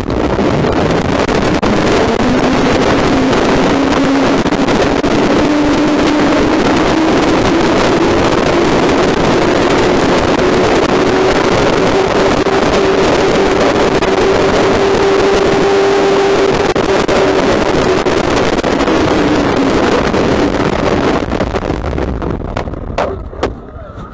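Onboard sound of a soap box cart careering down a road: the loud, steady rumble and rattle of its wheels on the tarmac with wind on the microphone, and a faint whine that rises in pitch over the first few seconds and fades later. The noise dies down near the end as the cart slows to a stop.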